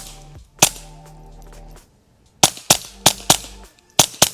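Suppressed .22 pistol shots from a Ruger Mark IV 22/45 fitted with a Tharpe Gunworks E22 rimfire suppressor: seven sharp cracks. The first comes on its own, and the rest follow in a quick string about a second and a half later. The shots are really, really quiet for a .22 handgun.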